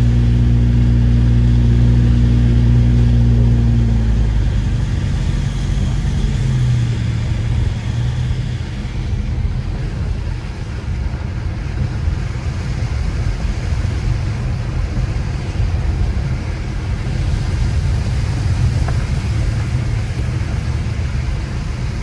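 Car driving on a snowy road, heard from inside the cabin. A steady low engine hum for about the first four seconds gives way to a continuous rumble of tyre and road noise.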